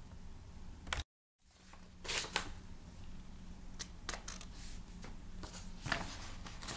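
Quiet room tone with a steady low hum, broken by a few faint clicks and rustles. The audio drops out to dead silence for a moment about a second in.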